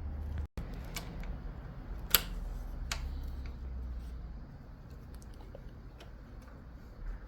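A few sharp clicks and light taps of a hand tool working the motorcycle's tail-section bolts, the loudest a single click about two seconds in.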